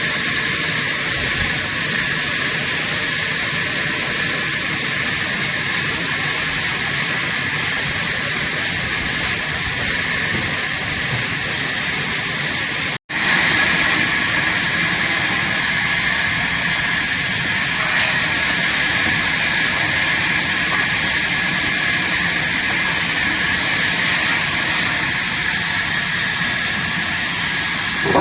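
Sawmill saw running, a steady loud hiss. It cuts out for an instant about halfway through, then comes back slightly louder.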